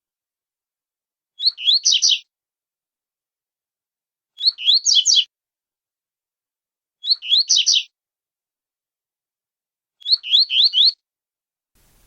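Small songbird singing the same short phrase of quick rising, high notes four times, about every three seconds.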